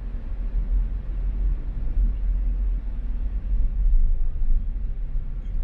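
Steady low rumble of a car on the move: road and engine noise, with no distinct events.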